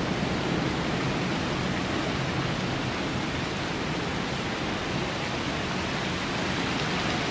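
Steady rain falling in a storm: an even, unbroken hiss.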